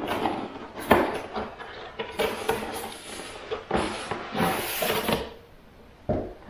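Cardboard packaging being handled: a small cardboard box is knocked, slid and scraped against the carton, with rustling between the knocks and a short scraping hiss a little before the end, then a thump as it is set down.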